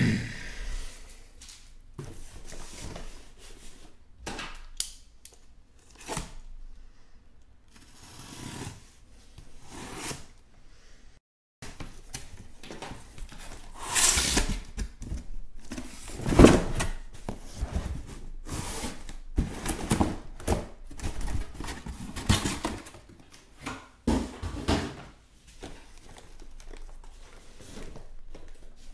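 Cardboard case of trading-card hobby boxes pulled open by hand at its taped seam, then unpacked: irregular cardboard rustling and tearing, with the boxes sliding out and set down in soft knocks. The loudest handling comes about halfway through.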